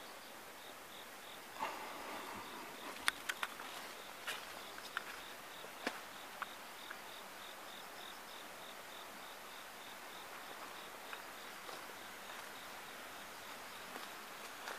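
An insect, cricket-like, chirping in a steady, regular rhythm of short, high pulses. A few sharp clicks and rustles come in the first half.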